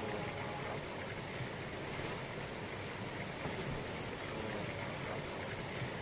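Steady rush of a rocky mountain stream, white water pouring over and between boulders.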